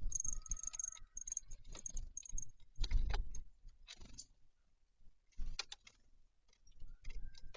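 Small birds at a feeder: irregular taps, clicks and scuffles of pecking and hopping, in short clusters with quiet gaps between.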